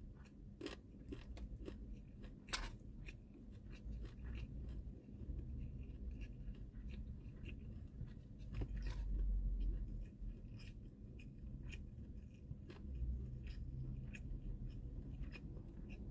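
Close-up mouth sounds of a person chewing egg-roll kimbap (rice and seaweed rolled in omelette), with many small scattered clicks and smacks.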